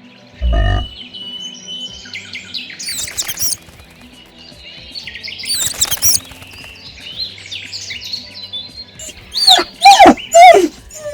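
Birds chirping and calling, with a short low thump about half a second in. Near the end come three loud calls, each falling steeply in pitch.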